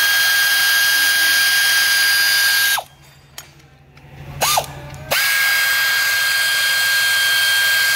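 A power ratchet wrench drives bolts on a truck engine's front cover. It gives two long runs of steady high whine with a hiss, cut off near three seconds and starting again about five seconds in, with a short blip of the trigger between them.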